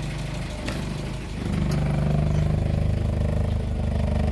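Dacia 1310's engine idling, growing louder about one and a half seconds in. It carries a knock that persisted after new crankshaft bearings, which the owner thinks probably comes from a piston or piston pin.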